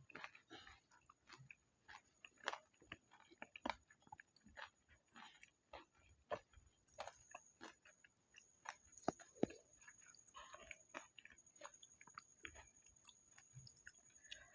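Close-miked chewing of pani puri: the crisp fried shells crunch and crackle in sharp, irregular clicks, mixed with softer wet mouth sounds.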